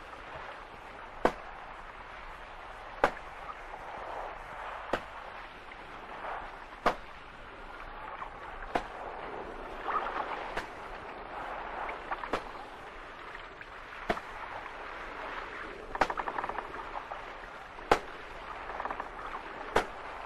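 Lashes of a cat-o'-nine-tails in a flogging, one sharp crack about every two seconds, about eleven in all, over a steady background noise.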